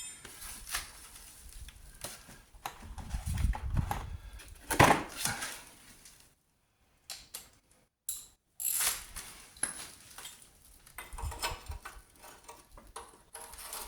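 Spanners and sockets clinking and knocking on metal while bolts on a car's rear suspension subframe are worked loose: irregular metallic clicks and taps, with one louder knock about five seconds in.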